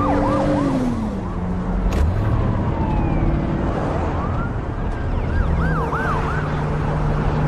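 Police car siren sounding in quick rising-and-falling yelps, heard near the start and again about two-thirds through, over a steady car engine hum.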